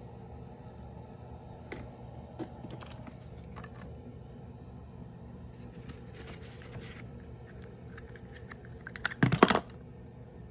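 Handling noise: scattered light clicks and taps, then a short cluster of louder knocks about nine seconds in, over a steady low hum.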